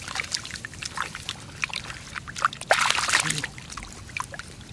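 Splashing and sloshing in shallow muddy water as bare hands grab a fish thrashing in it: a run of short, sharp splashes, with a louder burst of splashing about three seconds in.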